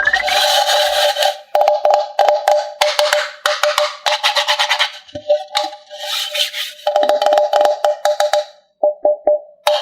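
Background music: quick percussive clicks over a held tone, with brief gaps, typical of a kids' video intro jingle.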